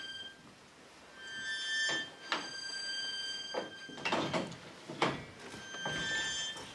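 Sparse live performance music: a high, steady note held in long stretches, with scattered knocks and rattles, most of them bunched about four to five seconds in.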